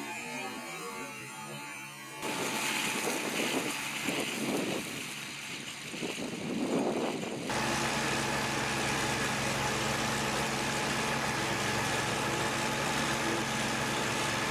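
Kubota ride-on mower running as it drives and cuts grass: a rushing, gusty noise at first, then from about seven and a half seconds in the engine close up, a steady, even drone with a thin whine over it.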